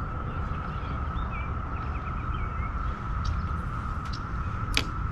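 Birds chirping over a low steady rumble and a thin, steady high hum, with one sharp chirp near the end.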